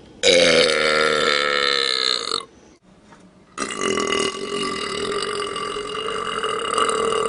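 A man belching loudly twice. The first long burp lasts about two seconds and drops in pitch. After a short pause, a second, longer burp starts about three and a half seconds in and holds a steady pitch.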